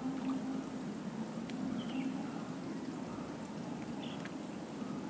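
Steady low drone of a distant motor, with a few short, high bird chirps about two and four seconds in.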